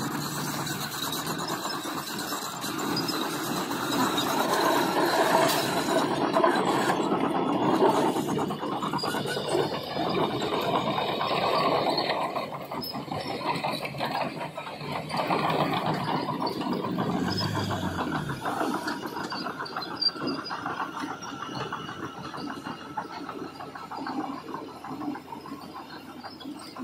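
Heavy earthmoving machinery working, a continuous mechanical noise with thin high-pitched squealing tones over it during the first several seconds.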